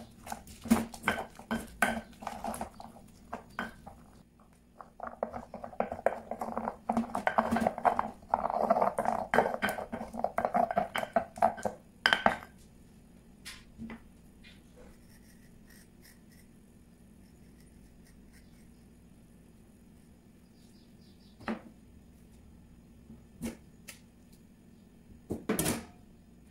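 Stone pestle (tejolote) grinding and pounding a wet green paste in a volcanic-stone molcajete: a rapid run of scraping, knocking strokes that stops abruptly about twelve seconds in. After that there are only three single knocks, spaced a couple of seconds apart.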